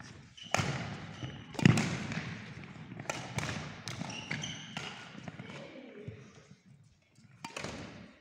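Badminton rally: a series of sharp racket strikes on the shuttlecock, about a second apart, echoing in a large sports hall, with short squeaks of shoes on the court floor. The hitting stops about five seconds in, and one lone knock comes near the end.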